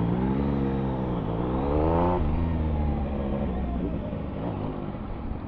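Motorcycle engine accelerating hard. Its pitch climbs for about a second, dips briefly, climbs again, then falls off suddenly about two seconds in and runs on lower and steadier.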